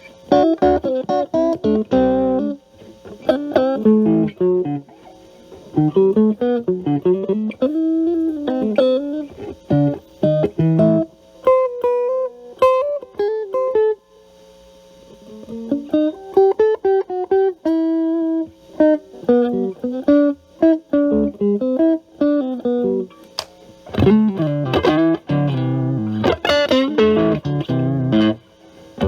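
Fender Stratocaster electric guitar with single-coil pickups, played through a Metal Pedals Rawhide overdrive set to low gain into a Marshall Valvestate amp's clean channel, giving a lightly driven tone. It plays phrases of single-note lines and chords with short pauses between them. Partway through, the guitar's volume is rolled back so the overdrive cleans up.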